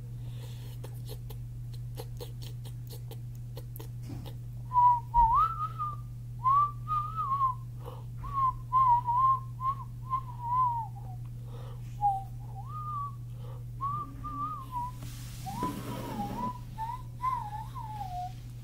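A person whistling a tune: a single wavering, gliding note in short phrases with brief breaks, starting a few seconds in, over a steady low hum.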